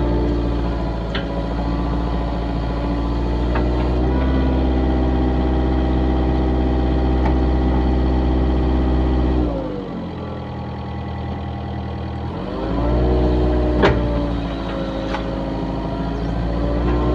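Excavator's diesel engine running steadily. About halfway through it winds down to a lower speed and about three seconds later speeds back up. A few short sharp clicks or knocks sound over it.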